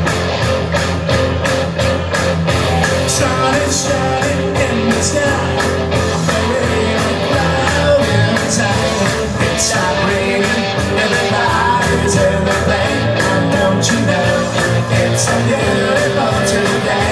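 Rock music performed live: guitar over a steady drum beat of about three hits a second, a mostly instrumental stretch with no clear lyrics.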